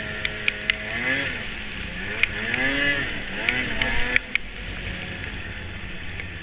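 2006 Polaris RMK 600 HO snowmobile's two-stroke twin engine running under way, revved up and down several times with rising and falling pitch, with sharp clicks and knocks through the first four seconds. After about four seconds the throttle eases off and it runs lower and quieter.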